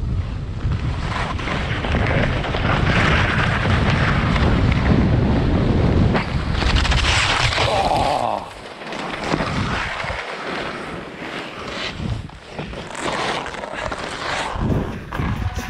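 Wind buffeting an action camera's microphone during a fast downhill ski run, with the skis hissing and scraping over packed snow. The low rumble is heavy through the first eight seconds, then eases to a lighter, patchier scraping as snow sprays over the camera.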